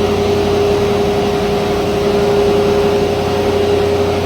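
Steady machinery drone with a constant pitched hum, unchanging throughout.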